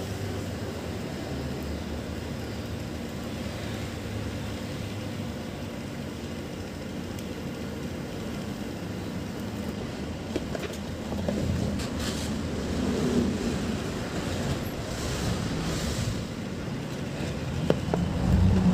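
Cardboard box and a plastic pen multimeter handled on a tile floor, with a few light clicks and knocks and louder handling near the end as the box is pressed closed, over a steady low background rumble.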